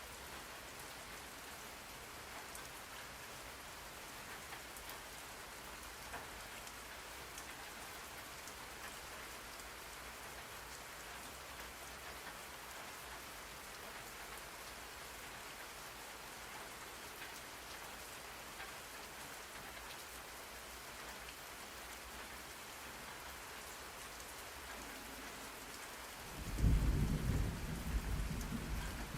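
Steady rain, with a loud low rumble of thunder starting near the end.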